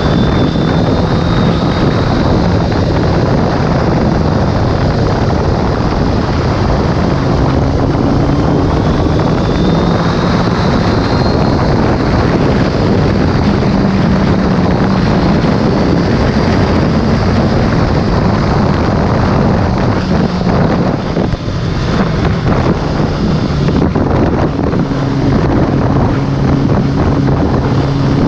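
Sport motorcycle cruising at road speed: heavy wind buffeting on the camera microphone over a steady engine note, with a brief dip in level about three-quarters of the way through.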